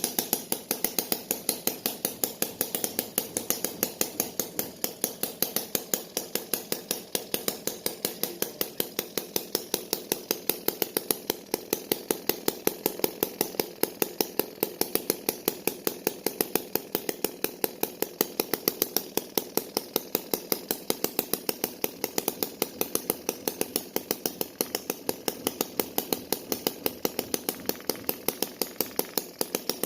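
A small mechanism running steadily, clicking sharply and evenly about four to five times a second over a constant hum.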